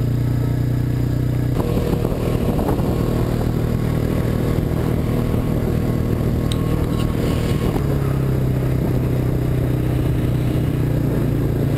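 ATV engine running steadily with tyres crunching on gravel, as one quad tows another on a rope. The engine note changes about a second and a half in and settles back to its earlier note near the end.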